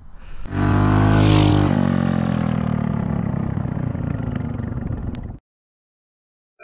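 A minibike's Predator 212 single-cylinder four-stroke engine going past at speed, loudest about a second in, its pitch falling steadily as it goes by, then cut off suddenly. A short sharp click near the end.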